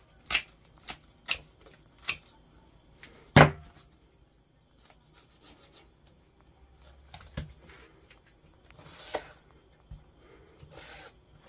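Largemouth bass being cut into pieces with a blade through the backbone: a run of sharp clicks and snaps, the loudest about three and a half seconds in, followed by a few softer knocks and rustles.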